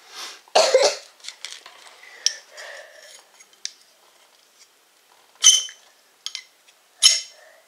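Ferro rod struck with a metal striker: a few short, sharp rasping scrapes, the loudest about half a second in and about five and a half seconds in, another just before the end, with faint scratches between.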